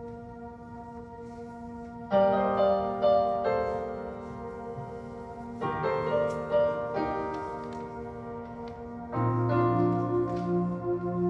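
Piano playing slow, held chords, a new chord struck every three to four seconds and left to ring and fade.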